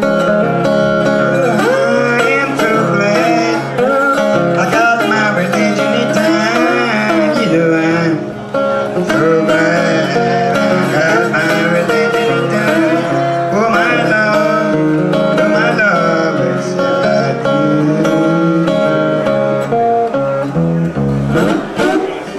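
Acoustic guitar playing a country blues tune, with a second melody line sliding and bending in pitch above the picked notes.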